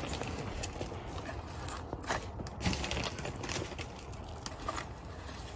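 Gloved hand pressing and firming potting soil around a bean seedling in a plastic pot: a few soft crunches and rustles.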